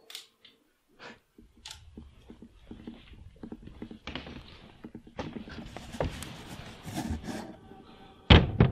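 Clothes and fabric rustling against the camera microphone, with small clicks and bumps of handling, then one loud thump near the end.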